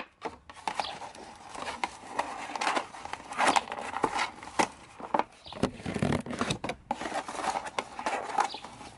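Kraft paper envelope being handled and opened by hand: irregular paper rustling, scraping and crinkling.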